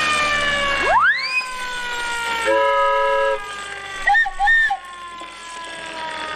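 Air-raid siren sound effect wailing, its pitch sinking slowly as it winds down, standing in for a laugh. Over it come cartoon slapstick effects: a rising slide whistle about a second in, a short horn toot near the middle, and a few quick warbling whistle notes about four seconds in.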